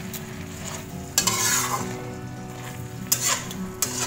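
Slotted spatula stirring and scraping potato cubes and green beans in a white coated wok, over a steady sizzle of the sauce. Sharp scrapes stand out about a second in and twice near the end.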